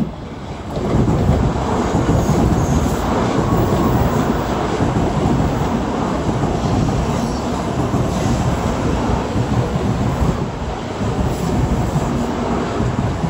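Shinkansen high-speed train running through the station: a loud, steady rush of wheel and air noise with a deep rumble, swelling sharply about a second in.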